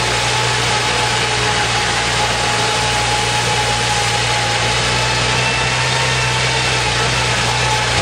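Old four-wheel-drive jeep's engine running steadily, heard from inside the cab, with tyre and body noise as it drives along a rough, wet riverbed.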